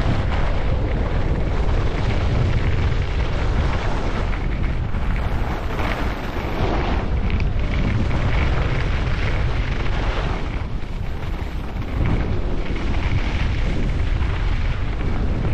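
Wind buffeting the microphone as a skier speeds downhill, a heavy steady rumble with the rushing hiss of skis sliding on snow. The level swells and eases a little as the run goes on.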